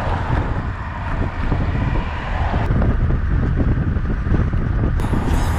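Wind buffeting the microphone of an action camera on a road bike riding at speed: a loud, steady low rumble, changing abruptly about five seconds in.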